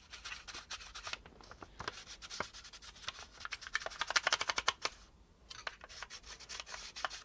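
Pencil rubbed rapidly back and forth over paper laid on a plastic model hull to pick up a trace of its edge: quick scratchy strokes, with a brief pause about five seconds in.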